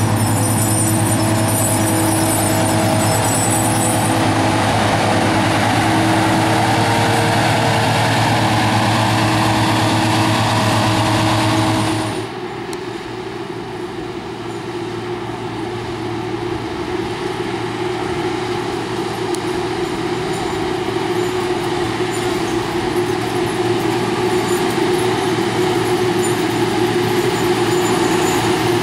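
Diesel engines of harvest machinery running steadily. About twelve seconds in the sound cuts abruptly to a different machine, quieter at first and slowly growing louder.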